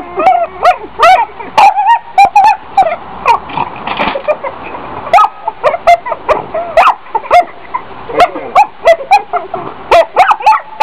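A dog barking over and over in short, pitched calls that bend in pitch, several a second.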